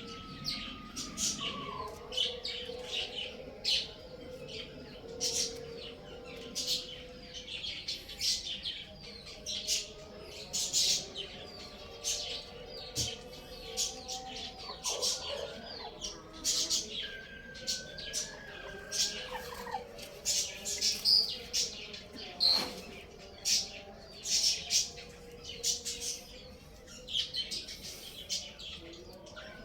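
Many small birds chirping rapidly and without a break, a dense flurry of short high calls, with a few longer, lower calls now and then.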